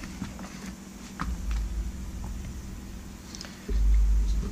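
Handling noise of hands working electrical wires: faint small clicks and rustles as wire ends are twisted together, with two spells of low rumble, the louder one near the end.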